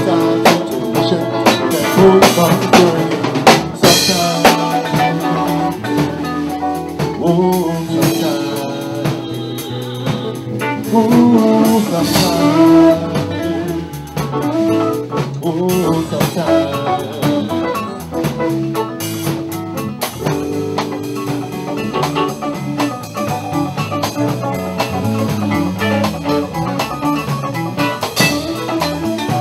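Live blues band playing, with drum kit and electric bass under a lead melody line.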